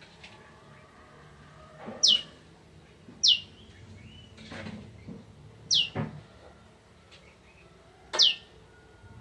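Prenjak (prinia) calling: four short, sharp notes, each falling steeply in pitch, a second or two apart.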